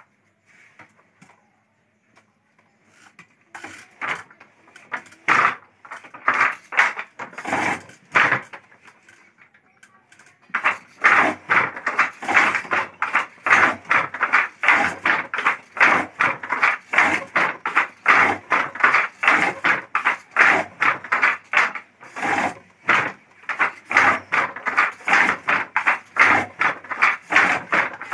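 Handloom in use during weaving: a few scattered wooden knocks at first, then from about ten seconds in a quick, steady clatter of about three strokes a second.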